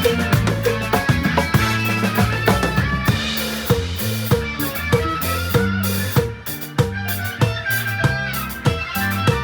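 Rock-style music with a full drum kit keeping a steady beat (kick, snare and rimshots) over bass and guitar.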